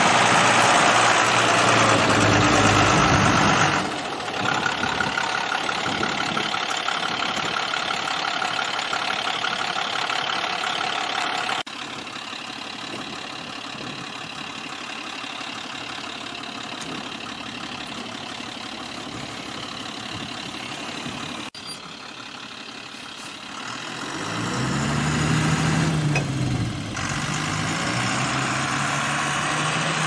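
A forest fire truck's diesel engine runs under a steady hiss, with several abrupt cuts in the sound. About two-thirds of the way through, the engine revs up and down, then settles into a steady idle.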